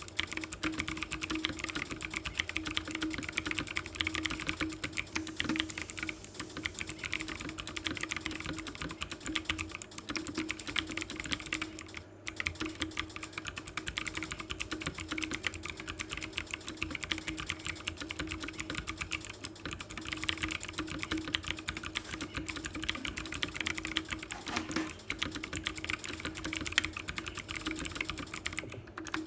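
Continuous fast typing on a Zifriend ZA646 65% mechanical keyboard with clicky blue switches: a dense, noisy clatter of key clicks, with a brief pause about twelve seconds in. A steady low hum runs underneath.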